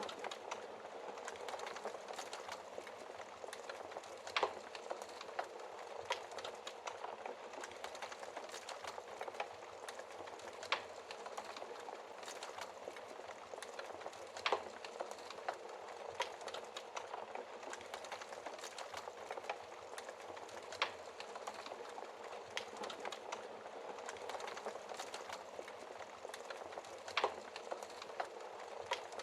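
Wood fire crackling steadily with a dense run of small crackles, broken by a few sharper, louder pops of burning wood every several seconds.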